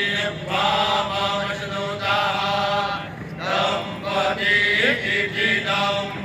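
Men chanting Vedic Sanskrit mantras together, led by one voice on a microphone, the pitch stepping up and down in phrases a second or two long with brief breaths between.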